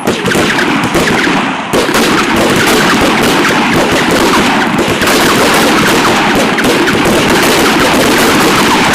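Many rifles firing at once along a firing line: a dense, continuous crackle of overlapping shots with no gaps, growing louder a couple of seconds in.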